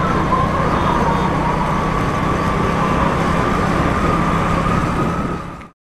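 Police car siren holding a high, slightly wavering tone over steady wind and engine noise from a moving motorcycle; everything cuts off abruptly near the end.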